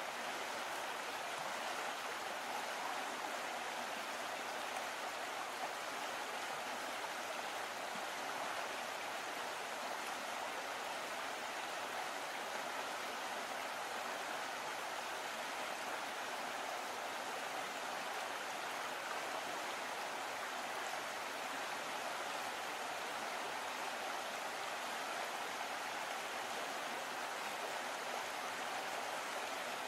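Steady, even rushing noise that does not change, with no distinct events in it.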